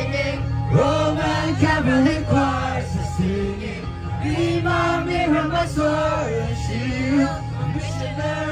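Background song with a singing voice over a steady bass line.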